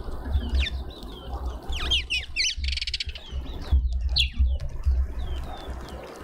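Small birds chirping: many short, downward-sliding chirps, with a rapid buzzy chatter about two and a half seconds in, over a low rumble.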